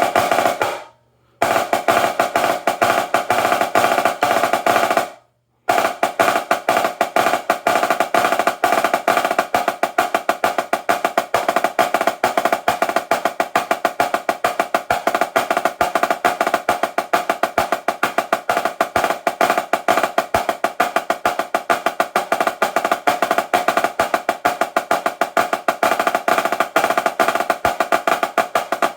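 Dynasty 14x10 marching snare drum, its top head tuned very high, played in fast continuous strokes like a roll, ringing at a high pitch. It breaks off briefly about one second in and again about five seconds in.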